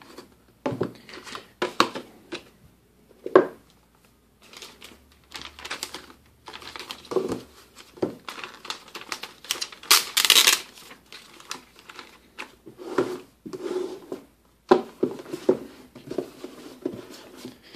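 Handling of a cardboard tablet box and its clear plastic protective sheet: a string of taps, knocks and rustles, with a loud crinkle of plastic about ten seconds in.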